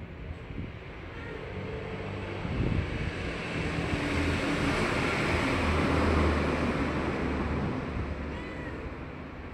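A motor vehicle passing by: engine and road noise swell to a peak about six seconds in, then fade away.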